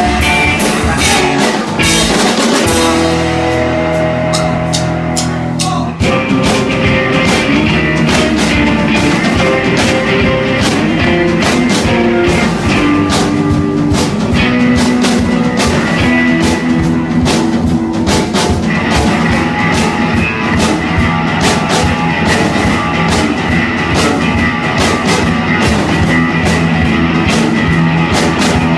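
Live rock band playing loud, with a drum kit and electric guitars, in a rough-sounding recording. A few seconds in, the band holds a chord, then the full beat comes back in.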